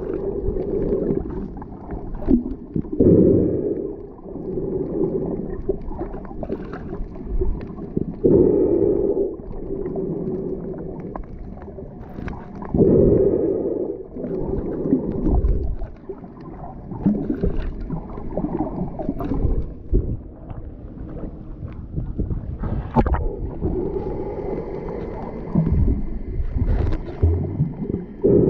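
Muffled underwater sound from a snorkeler's camera: water rushing over the mic and the snorkeler breathing through the snorkel, swelling into a louder surge every four or five seconds, with scattered small clicks.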